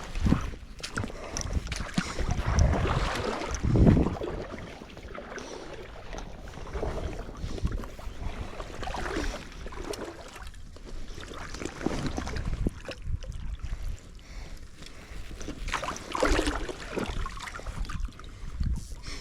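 Shallow river water splashing and sloshing in irregular swells, over a steady low rumble of wind on the microphone.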